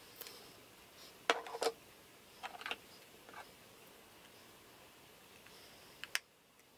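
Small plastic clicks and light knocks of makeup containers being handled and set down, loudest in a cluster a little over a second in, with two sharp clicks near the end as a black plastic blush compact is handled.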